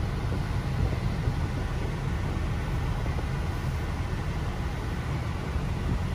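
Car cabin noise while driving slowly: a steady low rumble of engine and tyres with an even hiss above it.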